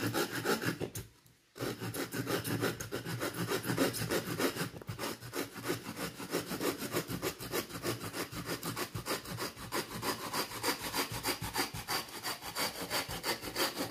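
Bahco Laplander folding saw cutting through a small stick of half-frozen pine in quick, even back-and-forth strokes, with a short pause about a second in.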